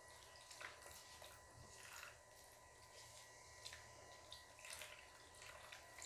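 Near silence, with faint scattered soft squishes and clicks as rice flour and water batter is stirred in a bowl.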